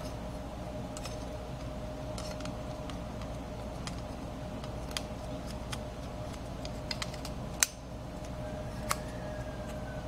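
Small clicks and taps of a desktop computer's front USB and headphone-jack circuit board and its metal back plate being handled and fitted by hand, the sharpest click about seven and a half seconds in. A faint steady hum lies underneath.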